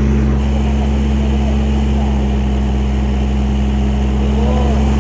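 Kubota KALWEY KR220 combine harvester's engine running steadily, a constant low hum close to the machine.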